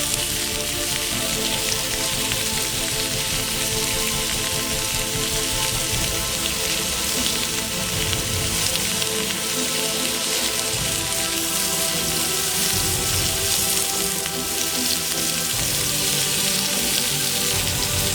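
Background music with sustained notes over a steady, dense hiss.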